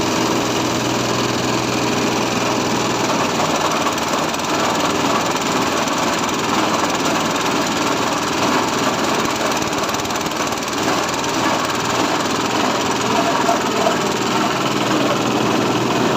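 SM-30 multipurpose chopper-grinder machine running steadily with a dense, grainy mechanical noise.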